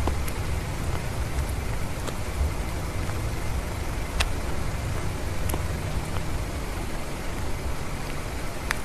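Steady outdoor noise: an even hiss over a low rumble, with a few sharp clicks, about four and five seconds in and again near the end.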